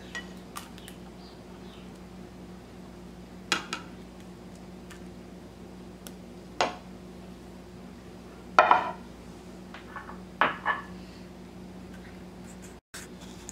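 A serving spoon and small glass cups clinking against a stainless steel pot as thick rice pudding is spooned out: several short separate knocks, the loudest a little past the middle, over a steady low hum.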